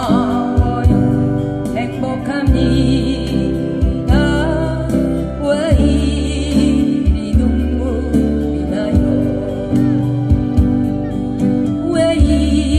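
A woman singing with vibrato to strummed acoustic guitars, amplified through a PA system.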